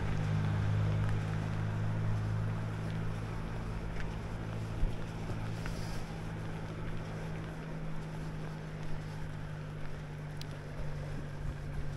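A steady low engine hum with a rushing, wind-like noise, slowly fading, and a few faint clicks.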